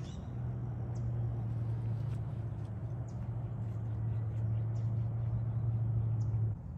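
A steady low engine hum that cuts off suddenly about six and a half seconds in, with a few faint high ticks over it.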